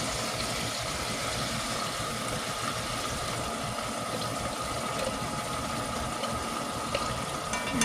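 Diced ham frying in hot oil in a pot: a steady sizzle.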